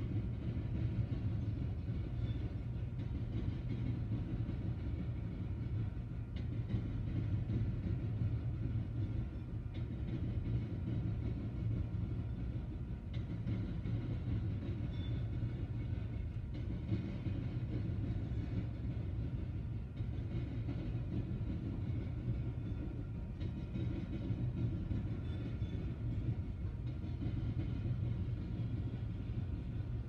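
Empty coal hopper cars of a freight train rolling past, a steady low rumble of steel wheels on rail with a few faint clicks.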